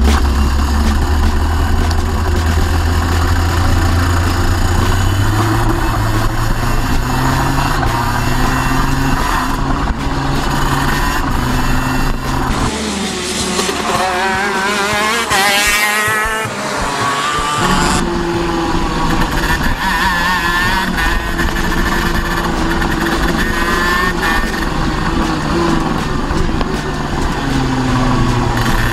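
Racing go-kart's two-stroke engine running at race speed, its note climbing and dropping over and over as the kart accelerates out of corners and brakes into them.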